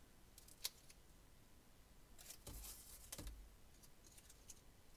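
Faint paper handling: a sharp click about two-thirds of a second in, then about a second of light rustling and taps as a paper bow is pressed and stuck down.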